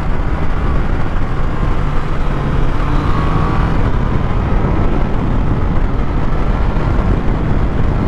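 Triumph Tiger Sport 660's three-cylinder engine running at a steady cruise under way, mixed with road and wind noise, with no revving or sudden changes.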